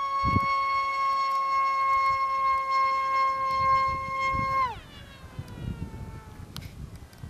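Electric motor and propeller of a radio-controlled model plane whining at a steady high pitch under power. About four and a half seconds in the throttle is cut, and the whine falls quickly in pitch and fades.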